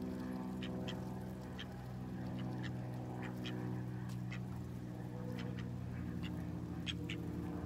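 Ducks quacking softly and pecking as they feed from a hand, with short sharp sounds about once or twice a second over a steady low hum.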